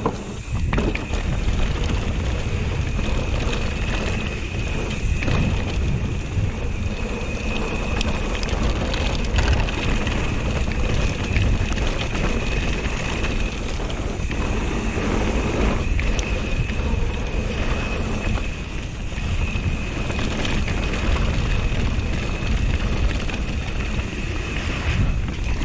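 Mountain bike rolling fast down a dirt trail: wind buffeting the camera microphone, along with tyre noise and rattling from the bike, and a steady high whine running underneath.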